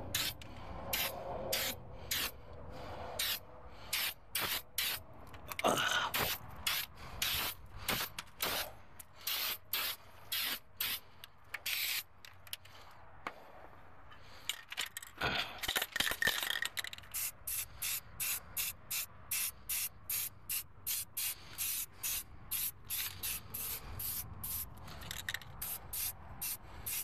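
Aerosol spray paint can hissing in quick short spurts, about two or three a second, with one longer spray a little past halfway. The sputtering is typical of a can going dead, which is what the painter blames for the extra overspray.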